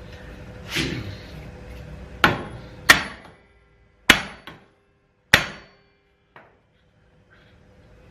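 Hammer striking the wheel nut run flush on the end of a Mark IV Supra drive shaft to drive the shaft out of the hub: about six sharp metal blows at uneven intervals, some with a brief ring, the last one faint.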